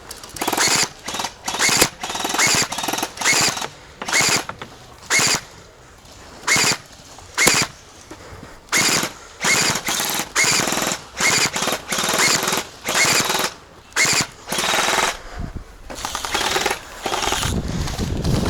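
Electric gel blaster firing in short full-auto bursts, each about half a second long with a whirring gearbox whine. About twenty bursts come in quick succession, closely spaced at first and with longer gaps later.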